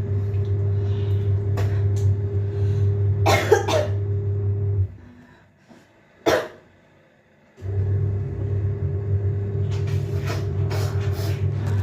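A person coughing: a short run of coughs about three and a half seconds in and one sharp cough about six seconds in. A loud steady low machine hum runs underneath, cuts out for a few seconds around the single cough, and starts again.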